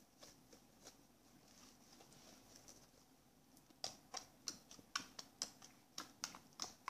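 Homemade fluffy slime being pressed and poked with fingers, giving soft sticky clicks and pops. They are faint and sparse at first, then a quick run of sharper ones starts about four seconds in.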